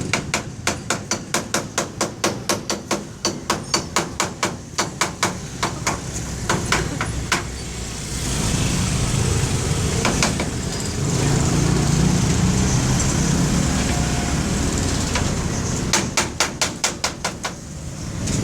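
Rapid hammer blows, about three or four a second, beating out bump damage on a tricycle, in two runs at the start and near the end. Between the runs a steady low rumble, like a vehicle, fills the middle.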